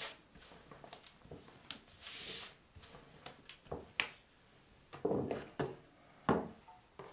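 Wooden rolling pin with a sheet of dough wrapped around it, rolled across a wooden table: a soft rubbing swish, then several short knocks of the pin and hands on the tabletop as the dough sheet is unrolled.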